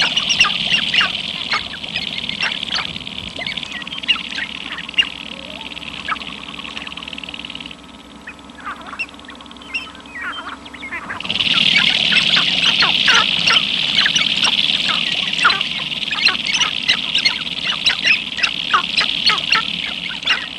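A flock of male sharp-tailed grouse calling on their dancing ground (lek) during the spring courtship display: many short clucks and cackles over a steady high chorus. The chorus drops out for about three seconds near the middle, then returns.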